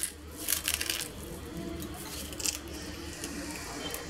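Cornflakes being crumbled by hand into a dish, coarsely so that they stay in small flakes: a few short dry crackles, the loudest about half a second in, over a faint steady hum.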